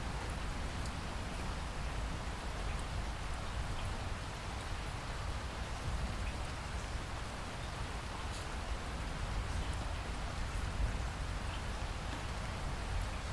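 Steady rain falling, with scattered individual drops ticking on a surface and a low rumble beneath, no thunder.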